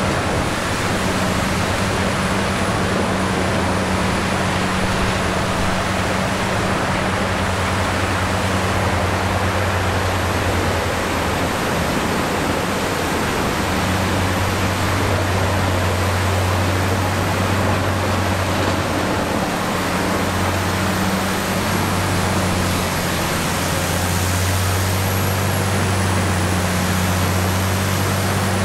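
Rotochopper B66 wood grinder running as it grinds scrap lumber fed by a Caterpillar 320E excavator: a loud, steady machine noise with a deep engine hum. The hum fades about ten seconds in and comes back stronger a few seconds later.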